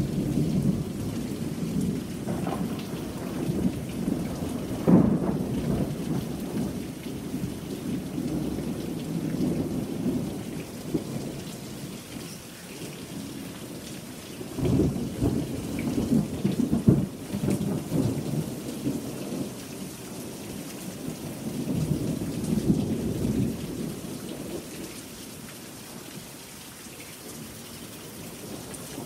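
Thunder rumbling in several long rolls, the loudest about five seconds in and again around fifteen to seventeen seconds in, over steady rain.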